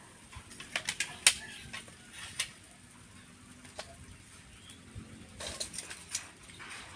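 Scattered sharp clicks and clinks of bildat shells being handled, knocking against each other and a stainless steel bowl and set down on a wire grill over coals. The loudest click comes about a second in, with a second cluster near the end.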